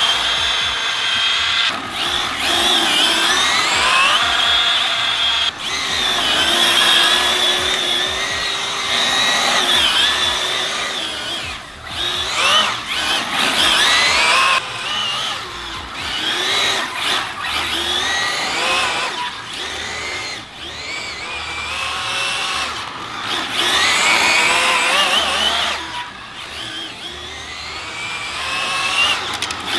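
Arrma Felony 6S brushless RC car's motor and geartrain whining, the pitch sweeping up and down again and again as it accelerates and brakes, with a few abrupt breaks.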